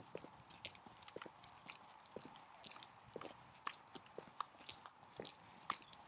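Faint, irregular small clicks and crunches of a dog and walker moving on a wet, gritty path, with no steady rhythm.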